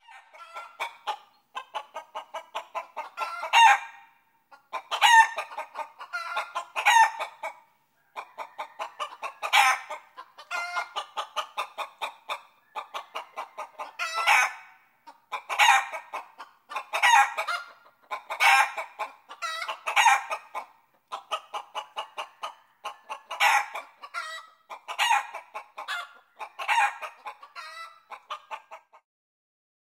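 Chickens clucking: runs of rapid short clucks, broken every second or so by a louder squawking call. It cuts off suddenly near the end.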